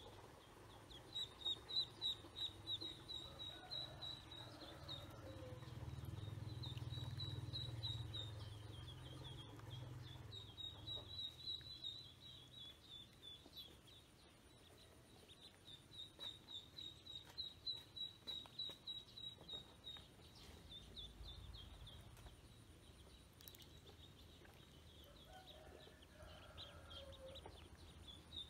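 Ducklings peeping, faint runs of rapid high peeps that break off for short lulls, with a low rumble underneath in the first half.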